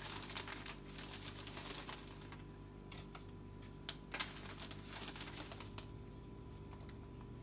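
Scattered light clicks and rustles of hands handling food and kitchenware: a plastic Ziploc bag of cornmeal and perforated air-fryer racks being handled. A steady low hum runs underneath.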